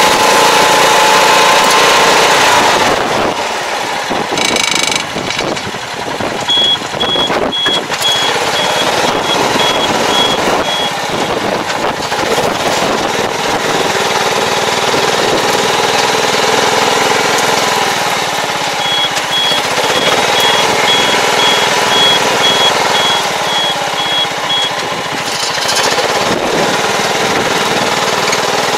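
Tractor engine running as it drives across a tilled field pulling a fertilizer applicator. A high electronic beeper pulses evenly, about two beeps a second, for a few seconds twice.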